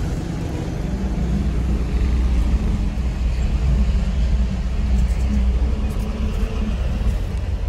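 Diesel engine and road noise of a Mitsubishi Canter minibus heard from inside its cab while driving: a steady low rumble.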